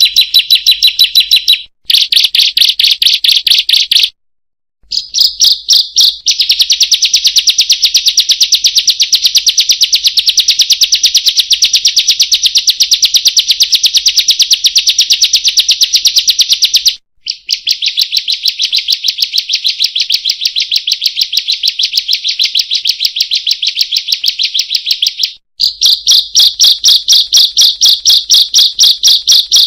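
Ciblek (bar-winged prinia) calling in a fast, unbroken string of high chirps, with a few brief breaks, the longest about four seconds in. This is the 'buka paruh' call, used as a lure to get caged birds singing.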